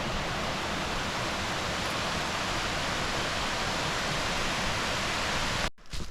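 Arethusa Falls, a waterfall, rushing in a steady even roar that cuts off suddenly near the end.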